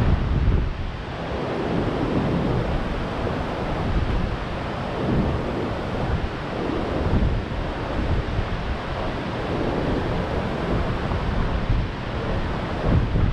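Rough, storm-driven surf breaking continuously, a dense wash of waves that swells and eases every second or two. Wind gusts on the microphone.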